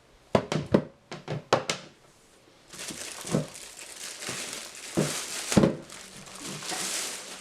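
Several sharp clicks and knocks of hard plastic being handled, then plastic packaging crinkling and rustling steadily, with a few soft thumps.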